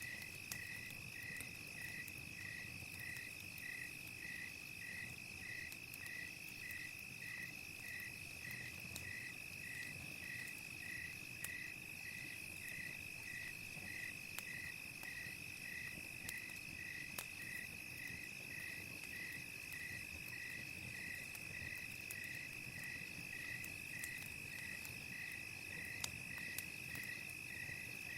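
Crickets at night: one steady high trill with a second insect chirping rhythmically about twice a second. A few sharp crackling pops from a campfire are mixed in.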